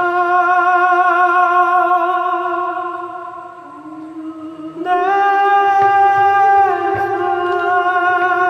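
Dramatic score music of long, held wordless vocal notes wavering with vibrato. It fades about three seconds in and swells back on a higher note about five seconds in.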